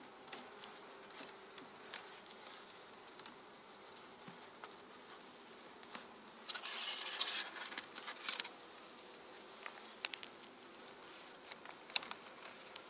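Honeybees buzzing steadily at an open hive, with scattered clicks and knocks of a hive tool on the wooden frames and a louder scraping rustle lasting about two seconds around the middle.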